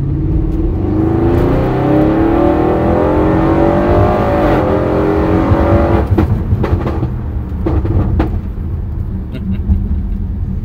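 Audi RS6 C7's Stage 2 tuned 4.0 twin-turbo V8 (EA824) heard from inside the cabin under hard acceleration. The engine note rises steadily for about six seconds, then breaks at a gear change, followed by a string of sharp exhaust pops and crackles.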